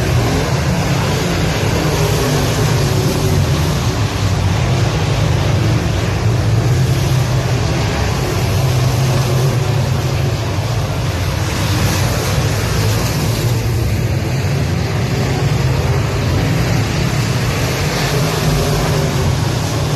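A pack of semi late model dirt race cars running around the track, their V8 engines making loud, steady, overlapping engine noise.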